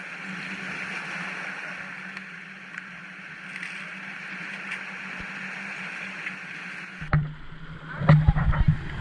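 Steady water noise with a low hum, changing abruptly about seven seconds in to loud irregular splashing and knocks of water.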